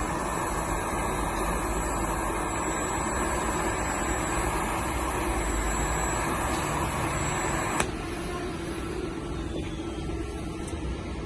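TIG welder running, a steady arc hiss and hum with a high whine, that cuts off with a sharp click about eight seconds in; a quieter steady machine hum carries on after.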